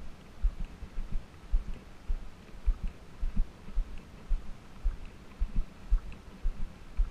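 Footsteps walking on a sandy dirt trail: a steady run of dull low thuds, two to three a second.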